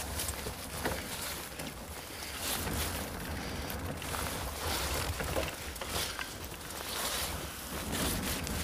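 Mountain bike riding a wet forest trail: steady wind rumble on the microphone over the rolling noise of the tyres, with scattered clicks and rattles as the bike goes over boardwalk planks and bumps.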